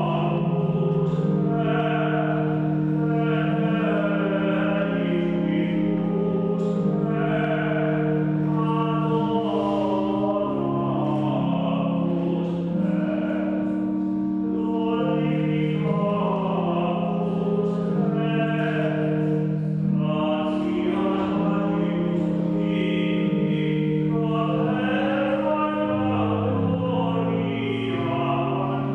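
Choir singing sacred music in several parts at once, with long held notes that move in steps.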